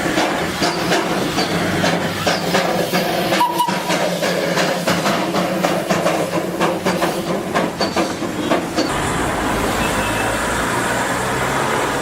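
Darjeeling Himalayan Railway narrow-gauge toy train running, with irregular clattering clicks of the wheels over the rails. About nine seconds in, the clatter gives way to a steadier hiss.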